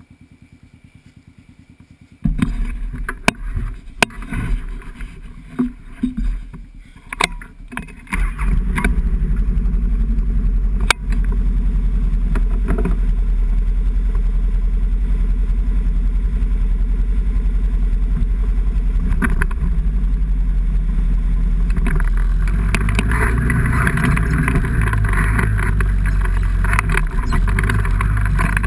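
A vehicle engine running, loud and steady from about eight seconds in, after a few seconds of irregular knocks and thumps.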